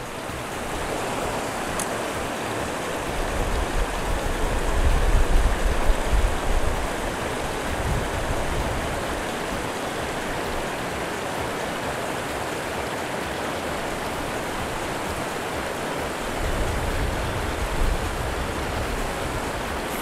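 Mountain stream water rushing steadily, with gusts of wind buffeting the microphone as a low rumble from about three to seven seconds in and again near the end.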